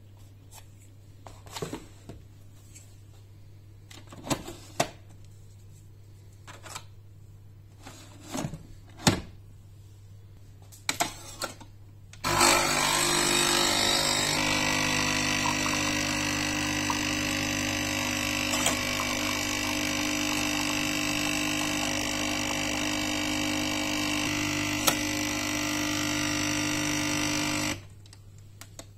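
Scattered clicks and knocks as coffee capsules and the machine are handled. About twelve seconds in, a Nespresso-style capsule coffee machine's pump starts with a steady, loud buzzing hum while it brews, then cuts off suddenly near the end.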